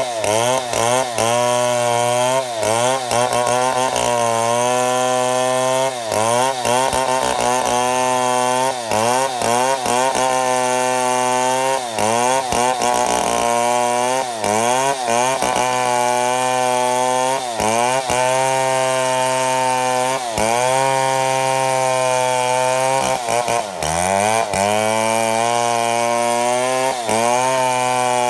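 Chainsaw ripping a mahogany log lengthwise for slabs, running at high speed throughout. Its pitch dips and recovers every second or two as the engine bogs under load in the cut, over a steady low hum.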